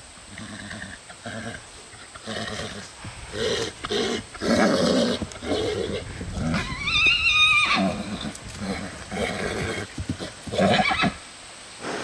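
Fjord horse calling: a run of short neighs, then one long, high, wavering whinny about seven seconds in, from an agitated horse.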